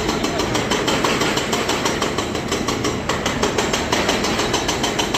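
Hydraulic breaker hammer on a Volvo EC300DL excavator pounding, with rapid, evenly spaced blows about ten a second over the excavator's running engine.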